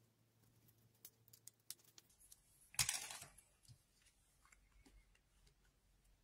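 Faint small taps and clicks of hands handling a pen and a paper craft card on a craft mat, with one louder knock and rustle about three seconds in.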